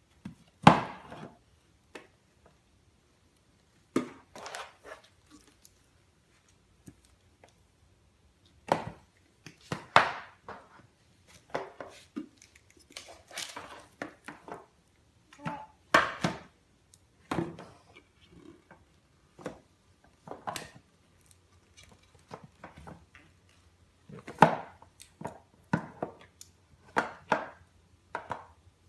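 Formula tins and boxes being handled and knocked against a wooden shelf and floor: irregular knocks, clatters and scrapes, a few seconds apart, the loudest about a second in.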